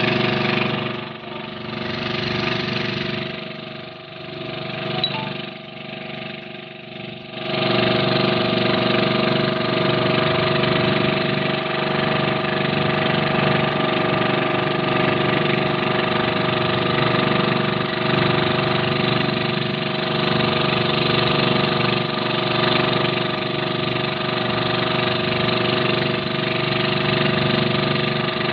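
The engine of a motorized outrigger fishing boat running steadily while under way. About a quarter of the way in it gets suddenly louder and then holds steady.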